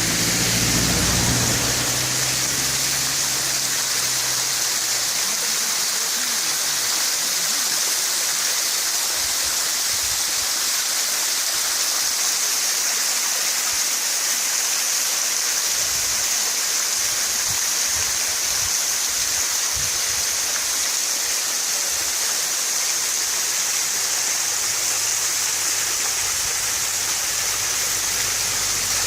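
Thermal spring water pouring steadily down a small waterfall, an even rushing hiss, with a brief low rumble at the start and a few soft low bumps around the middle.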